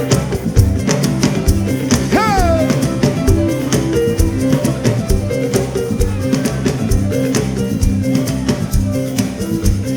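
Church band music with a steady, even percussion beat under sustained instrumental notes, with no singing; a brief sliding note rises and falls about two seconds in.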